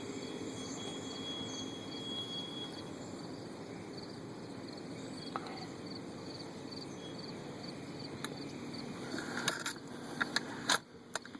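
Steady low wind rumble with insects chirping in quick, evenly repeated pulses. A few sharp clicks and knocks come near the end.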